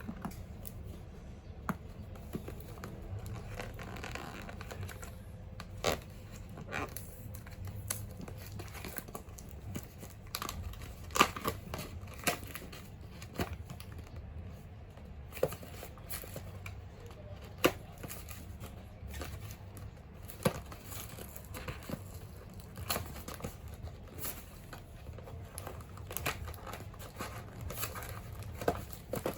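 Toy packaging being opened by hand: plastic and cardboard crinkling and tearing, with scattered sharp clicks and taps of handling throughout.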